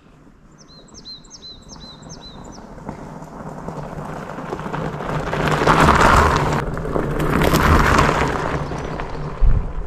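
A bird gives a quick run of about six high chirps at the start. Then the rushing noise of wind and rolling fatbike tyres builds up as the bike gathers speed, swelling and easing twice. A sharp low bump comes near the end.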